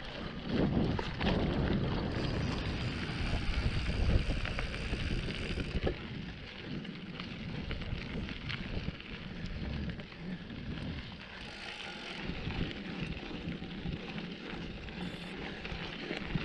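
Mountain bike being ridden over a dirt trail: continuous tyre noise with the chain and frame rattling in small clicks. Wind buffets the camera microphone, heaviest in the first six seconds or so.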